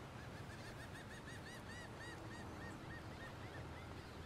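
A bird calling: a string of about fifteen short, arched notes, quick at first and then slower and fading, over a steady low rumble.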